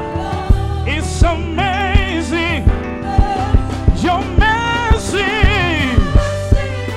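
Live gospel music: several voices sing long held notes with a wide vibrato, over keyboard, a steady bass and a regular drum beat.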